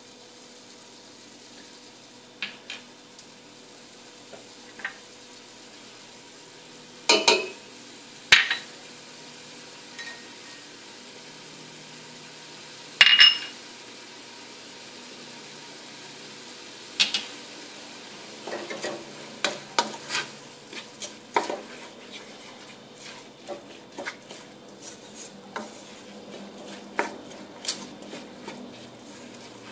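Onions and garlic sizzling quietly in oil in a stainless steel pot while a wooden spoon stirs them, with sharp knocks against the pot. The loudest knocks come between about seven and thirteen seconds in, followed by a run of lighter taps through the latter part.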